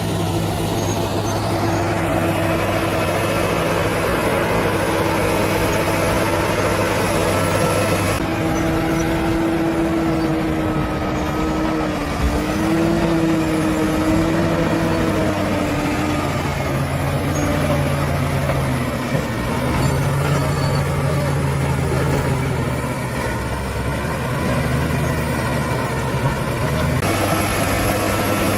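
Bulldozer's diesel engine running steadily, its pitch wavering a little. The sound changes abruptly twice, about eight seconds in and near the end.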